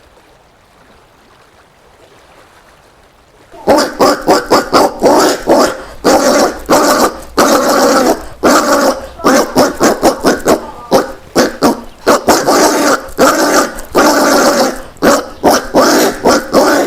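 Collared peccary calling: after about three and a half seconds of quiet, a rapid series of short, loud calls begins, several a second.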